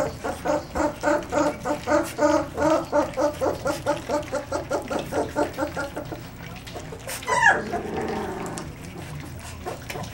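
Litter of young puppies eating together from a shared pan, making rhythmic squeaky grunts about three times a second. The grunting stops about six seconds in, and a single sharp yelp falling in pitch follows about a second later.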